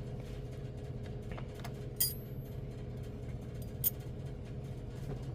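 Two light metallic clicks, about two seconds apart, as small metal locomotive parts are handled and fitted together, over a steady low hum.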